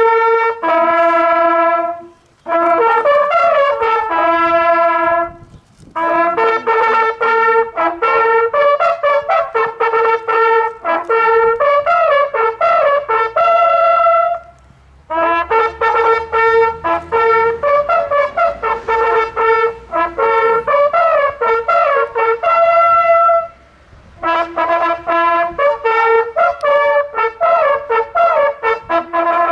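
A group of hunting horns played together, sounding a hunting fanfare in several phrases of stepped notes, with short pauses between the phrases.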